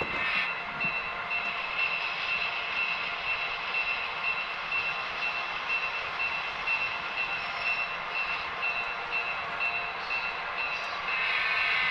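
HO scale model diesel locomotive's sound decoder playing a running diesel engine, with a high ringing tone repeating at an even rhythm, while the locomotive slowly backs its train.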